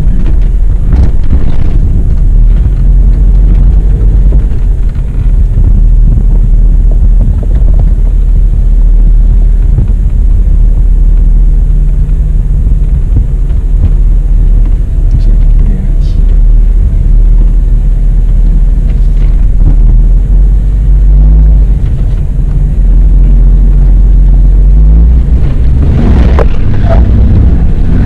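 Jeep engine running at low speed as it crawls over rock, a loud steady low rumble with the engine note shifting a little.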